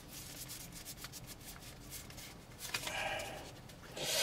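Light rubbing and rustling with small clicks as collectible cards are handled and turned over, followed near the end by a short, louder breathy noise.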